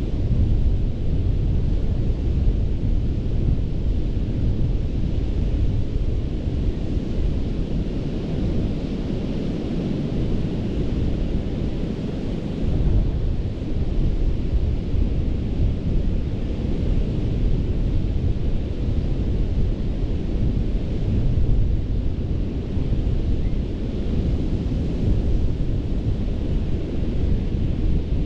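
Ocean surf washing steadily onto a sandy beach, with wind buffeting the microphone in a heavy low rumble that eases for a few seconds about a third of the way through.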